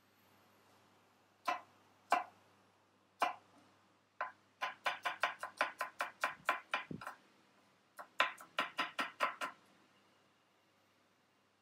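Chef's knife chopping shallot on a cutting board: a few single knocks, then two quick runs of chopping, about five strokes a second, stopping a couple of seconds before the end.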